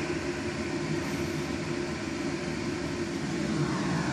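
Steady mechanical hum with an even hiss, a running appliance or fan droning with a low held tone.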